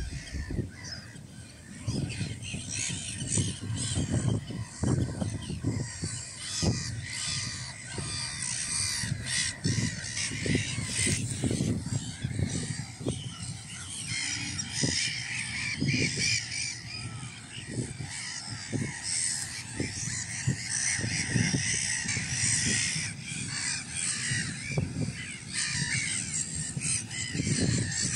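Breeding colony of black-headed gulls calling: many harsh, overlapping calls without a break, with dull low thumps scattered throughout.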